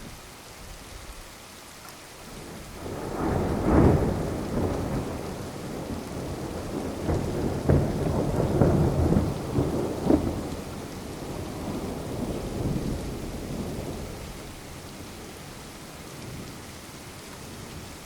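Thunder rolling over steady rain: the rumble builds about three seconds in and peaks about a second later, swells again with several sharper peaks around seven to ten seconds, then dies away while the rain keeps falling.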